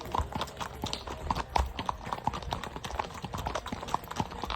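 Shod horse's hooves clip-clopping, the iron shoes ringing on hard ground in a quick, uneven run of strikes.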